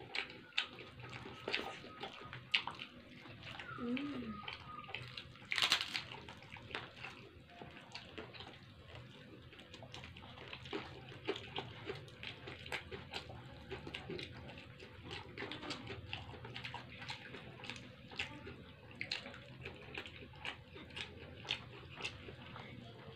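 Close-up eating sounds as two people eat rice and side dishes by hand from paper food wrappers: chewing, with irregular small crackles and clicks and one louder crackle about six seconds in.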